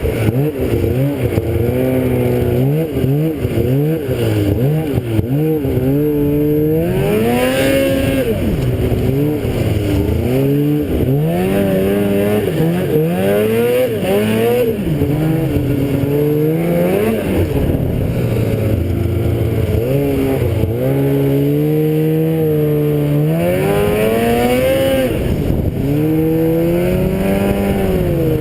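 Engine of the vehicle carrying the camera, running loud and close, its pitch rising and falling every second or two as the throttle is opened and eased off while riding.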